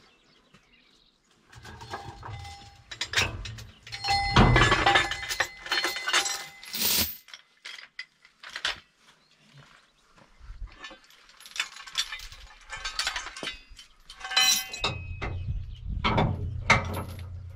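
Irregular metal clanks and rattles of steel tools and a long steel bar being handled, with ringing clinks, in two busy spells with a quieter stretch between.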